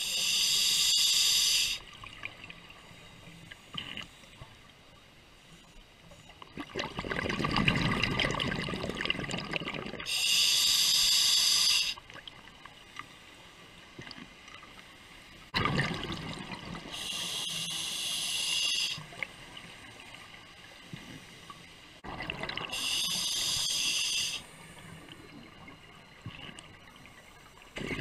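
Scuba diver breathing through a demand regulator: four short hissing inhales, several seconds apart, alternating with longer exhales of bubbling, gurgling air.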